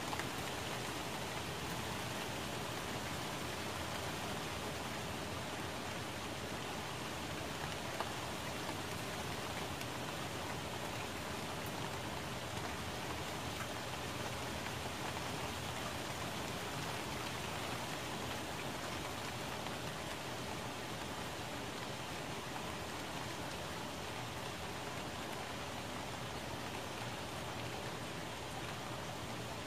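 Steady rain falling on plant leaves, an even hiss of many drops with no change in strength, and one sharper tick about eight seconds in.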